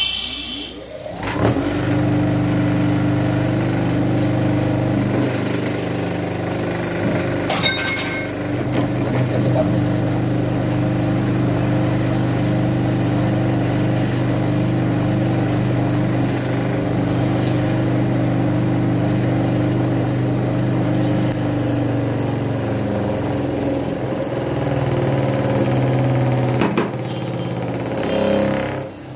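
Motor-driven sewing machine running, rising to speed over the first second or so, then running steadily until it slows and stops near the end.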